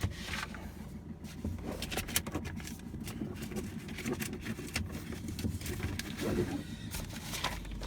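Diesel van engine idling steadily, with scattered clicks and knocks of things being handled over it.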